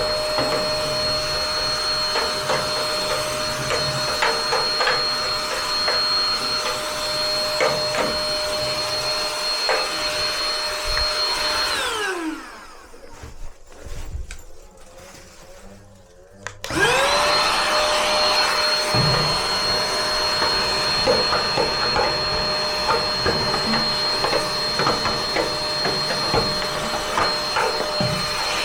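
Vacuum cleaner running while dust is vacuumed out of a gas water heater, with scattered clicks and knocks of the nozzle against parts. About twelve seconds in it is switched off and its whine falls away; some five seconds later it is switched on again and the whine rises back to speed.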